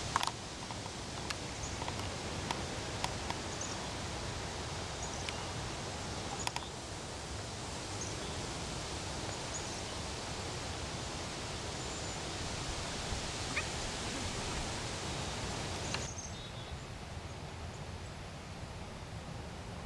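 Steady outdoor ambience of an open field: an even rushing hiss with a few faint high chirps and light clicks. The hiss drops a little about sixteen seconds in.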